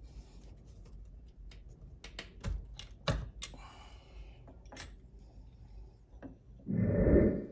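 Clicks and taps of small metal parts as a pneumatic impact wrench is taken apart by hand, with a louder noise lasting under a second near the end.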